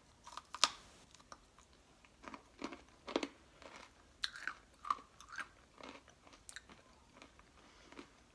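A person chewing a hard, caramel-coated Chex Mix and popcorn snack: irregular crisp crunches, about one or two a second, the sharpest about half a second in.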